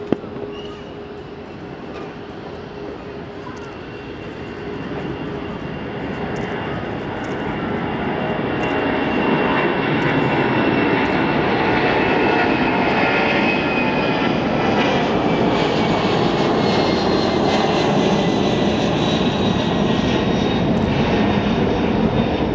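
Twin jet engines of a Boeing 767-300 airliner at takeoff power. The noise grows over the first several seconds as the jet rolls and lifts off, then stays loud and steady as it climbs out overhead. A thin high whine slowly falls in pitch in the second half.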